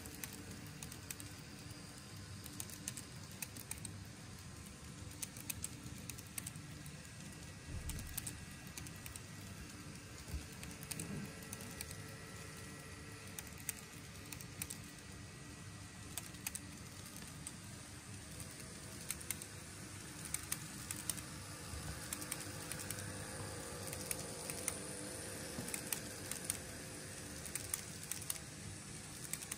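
N gauge model train running on sectional track, wheels making quick, irregular light clicks over the rail joints over a faint steady hum. It gets a little louder in the last few seconds.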